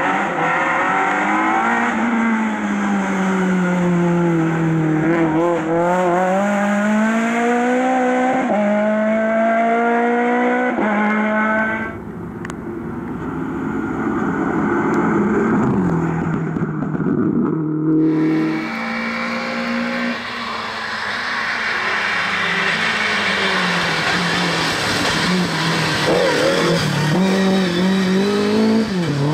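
Rally cars passing one after another, each engine revving hard, its pitch sagging and climbing again through gear changes. First a Citroën C2, then after an abrupt cut a Citroën DS3, then after another cut a Lada.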